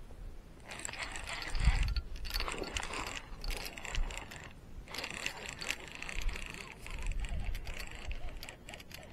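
Spinning fishing reel being cranked to wind in line: a run of fast mechanical clicking and whirring that comes in several bouts with short pauses, plus a few dull handling thumps.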